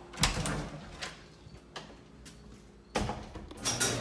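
Wooden panel door being unlatched and swung open, a sharp clack about a quarter second in followed by a few lighter knocks, then another clatter near the end.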